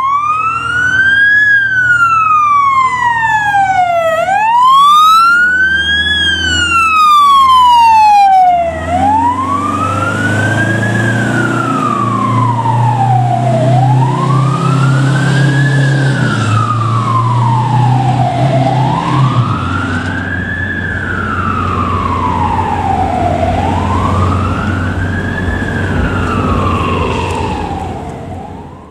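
An aerial ladder fire truck's siren wailing, rising and falling in an even cycle about every five seconds. It is sharp and close at first, then softer, with a low truck engine rumbling underneath for several seconds, and it fades out near the end.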